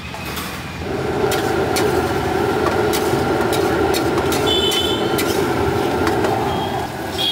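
Mutton rogan josh gravy sizzling and bubbling in a steel pan on a stove, a steady rushing noise that comes up about a second in. A steel spatula stirring it clicks and scrapes against the pan.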